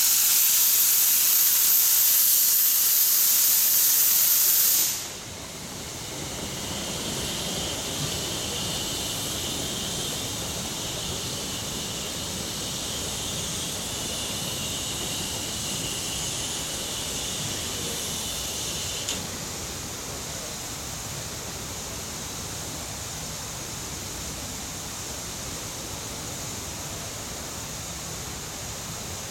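Steam locomotive blowing off steam: a loud, high hiss that cuts off abruptly about five seconds in, then a softer hiss with a thin whistling edge that stops suddenly about two-thirds of the way through, leaving a steady low rush.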